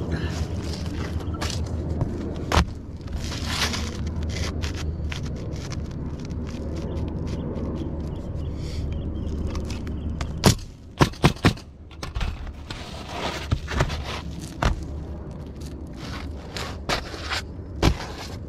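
Roofing work noise: scraping and scattered sharp knocks over a steady low hum for about the first ten seconds. After the hum drops away, a quick run of four or five sharp knocks follows, then more knocks spaced out.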